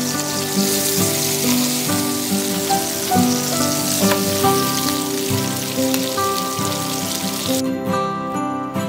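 Rack of lamb sizzling as it sears in a frying pan, a steady hiss, over background music. The sizzling cuts off abruptly near the end, leaving only the music.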